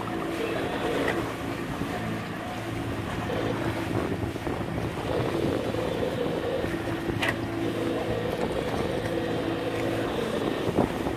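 Boat's outboard motor running at a steady speed as the catamaran motors along, with wind buffeting the microphone.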